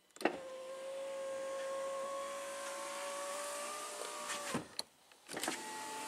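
2011 GMC Acadia power window motor running for about four seconds after a click of the switch, then stopping with a thud. Another click, and the motor starts running again near the end. The switch, its contacts just cleaned, now works with very little effort.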